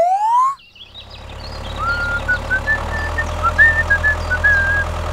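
A tractor's diesel-style engine sound runs with a steady low rumble that builds in loudness, with short high chirps over it. It opens with the tail of a rising, cartoon-like pitch glide that ends about half a second in.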